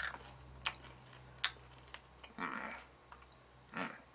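Peanut M&M's being chewed: quiet, sharp crunches of candy shell and peanut, spaced irregularly, with two short, fuller chewing sounds partway through. A low steady hum runs underneath.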